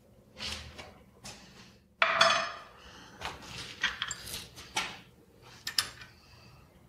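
Steel parts and tools clanking and clinking against a milling machine table while a workpiece is clamped and blocks are set in place: a few light knocks, a sharp ringing clank about two seconds in, then several lighter clinks.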